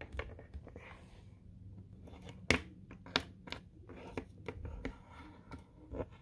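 Plastic Littlest Pet Shop figures and a pink plastic accessory being handled and set down on a wooden table: a run of light clicks and taps, the loudest a sharp knock about two and a half seconds in.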